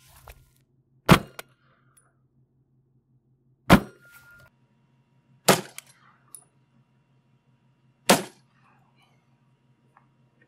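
Four gunshots from a CZ Scorpion 9mm with a 7.72-inch barrel firing Federal 147-grain HST, spaced about two to two and a half seconds apart, each a sharp report with a short tail.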